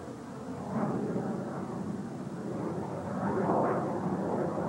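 Jet fighter engine noise, plausibly a MiG-29's twin Klimov turbofans: a rushing noise with no clear pitch that swells about a second in and again, louder, about three and a half seconds in.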